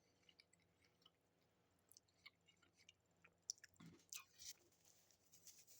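Faint chewing of a sub sandwich: soft, sporadic wet mouth clicks and smacks, getting louder and busier about three and a half seconds in.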